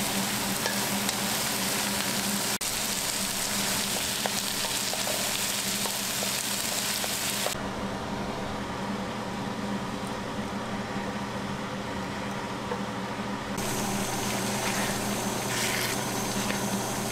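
Diced red onions sizzling and frying in a hot nonstick wok, stirred with a wooden spatula. About halfway through, the high hiss drops away for several seconds as the chicken curry simmers in its liquid, then the sizzle returns as the thickened curry is stirred.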